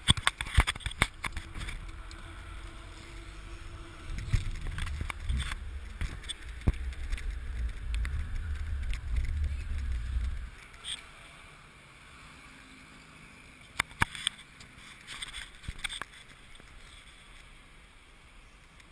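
Wind rumbling on the microphone of a moving mountain bike, with sharp clicks and knocks from the ride. The rumble stops about ten seconds in, leaving only a few scattered clicks.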